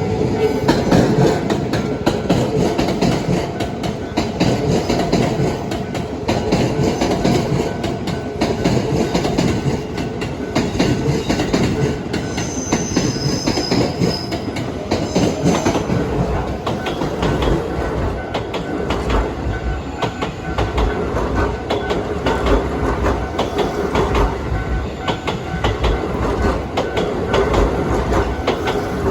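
Keisei AE-series Skyliner electric train running past, its wheels clicking rapidly over the rail joints, with a brief high wheel squeal about halfway through.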